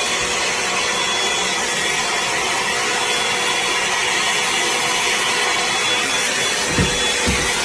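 A motorized household appliance running: a steady loud whooshing noise with a faint steady whine, and a few low thumps near the end.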